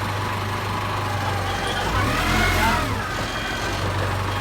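Rebuilt Nissan 3-ton forklift's engine running steadily, with a brief whine that rises and falls about two seconds in.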